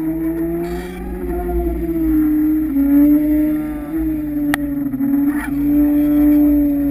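A trolling boat's motor heard underwater: a steady, slightly wavering hum with a low rumble beneath. A single sharp click about four and a half seconds in.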